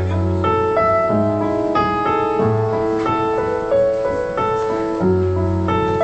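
Solo piano playing a sustained chord accompaniment, with a low bass note struck about every second or so, between the sung lines of a pop ballad.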